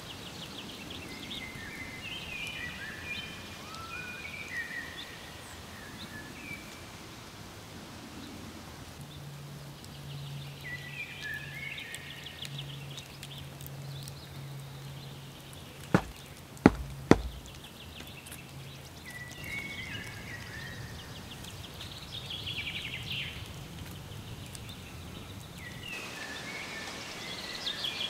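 Woodland birds singing on and off, with three sharp knocks a little past the middle, the first lighter than the other two. A faint low hum runs under the birds for several seconds in the middle.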